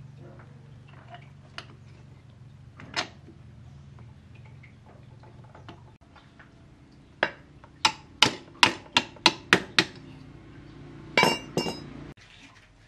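Sharp metallic clinks and knocks of metal striking metal. There is a lone strike about three seconds in, then a quick run of about eight evenly spaced strikes, roughly three a second, and a short cluster near the end. A steady low hum runs underneath and stops shortly before the end.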